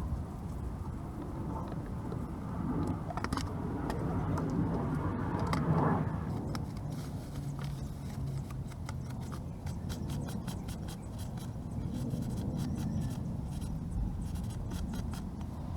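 Honda Zoomer scooter running with a steady low hum that rises briefly about six seconds in, followed by a run of fast light clicking. This is the abnormal drive-train noise being checked.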